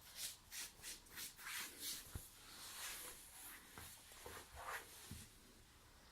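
Quick rubbing strokes, about three a second, then a single sharp crack of a joint about two seconds in during a chiropractic adjustment.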